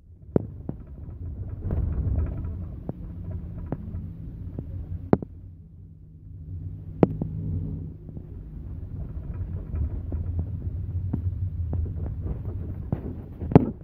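Volkswagen Gol G4 heard from inside the cabin while driving: a low engine and road rumble with a faint steady hum, broken by scattered sharp knocks and clicks.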